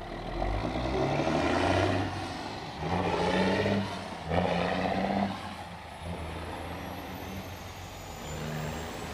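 Semi-truck tractor's diesel engine revving hard in three loud bursts with brief dips between them as the truck pulls away, then settling to a lower, steady running.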